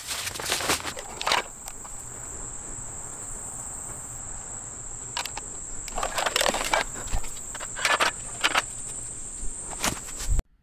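Steady high-pitched insect drone, with the rustle and trickle of granular deer mineral poured from a paper bag in the first second or so, then clicks and rattles as a cellular trail camera is fitted and shut into its metal security box. The drone cuts off abruptly near the end.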